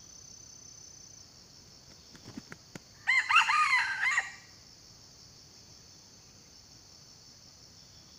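Red junglefowl rooster crowing once, a short crow of about a second, preceded by a few soft thumps. A steady high chirring of insects runs underneath.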